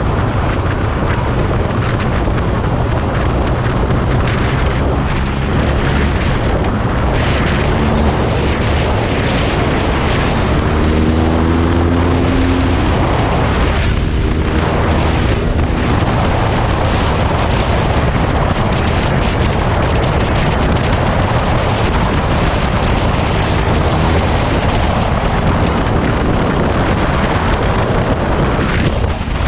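Heavy wind noise on the microphone over a BMW R nineT Urban G/S's 1170 cc boxer twin, ridden on the road. About ten seconds in, the engine note rises as the bike accelerates. It breaks off briefly around fourteen seconds, then rises again for a moment.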